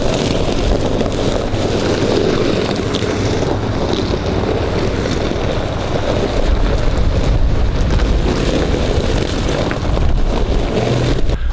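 Chevrolet pickup trucks driving slowly past on a gravel trail, a steady low rumble of engines and tyres, with wind rushing over the microphone.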